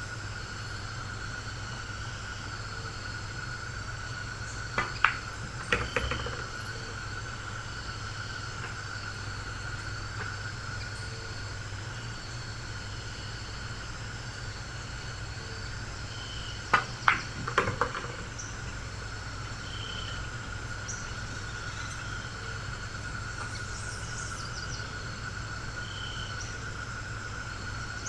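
Two pool shots, each a quick cluster of sharp clicks: the cue tip striking the cue ball and billiard balls colliding, about five seconds in and again about seventeen seconds in. A steady hum runs underneath.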